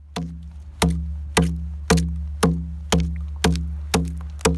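A deer-antler adze blade chopping into a wooden log in even strokes, about two a second, each a sharp hit with a short ringing tone. A steady low rumble runs underneath.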